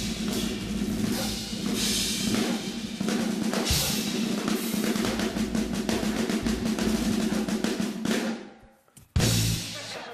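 Drum-driven music: a drum kit playing a fast run of snare and bass-drum hits over a steady low note. It dies away about eight seconds in, and after a short gap a sudden loud hit starts new music near the end.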